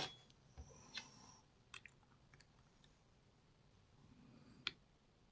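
Near silence with a few faint, short clicks from lock picking tools working a Lockwood MT5 lock; the last click, near the end, is the loudest.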